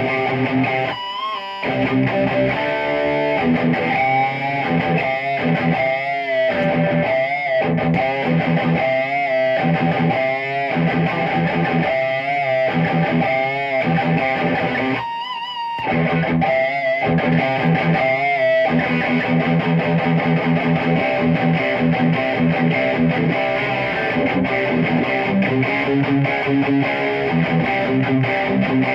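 Electric guitar played through a Peavey 6505+ combo amp: short, choppy chord stabs with brief breaks for most of the stretch, then held, ringing chords near the end.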